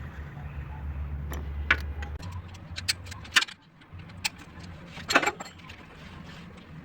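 2017 Honda Civic's engine running with a steady low hum that cuts out briefly about halfway through, over it a handful of irregular sharp metallic clicks and clinks.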